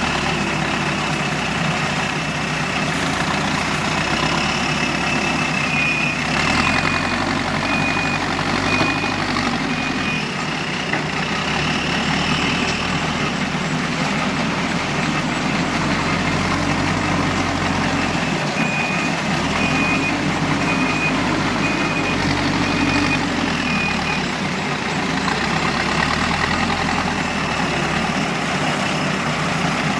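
Heavy diesel engines of a JCB 3DX backhoe loader and dump tractors running steadily, the engine note shifting with load as the machine works. A reversing alarm beeps evenly in two spells of several seconds each.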